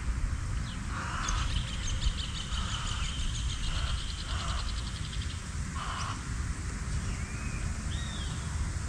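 Birds calling: several harsh, caw-like calls, then two short whistled notes near the end. A fast, high ticking runs under the first calls, and wind rumbles low throughout.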